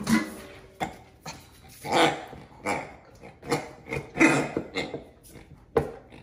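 A Great Dane mouthing her pink toy pig, with about eight short sounds roughly a second apart. These are a mix of the toy's oinks as it is squeezed and the dog's own vocalizing.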